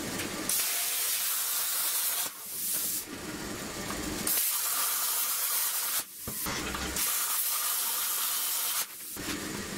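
Plasma cutter cutting steel: a steady rushing hiss of the arc and compressed air, broken by short dips about two, six and nine seconds in as the torch stops and restarts.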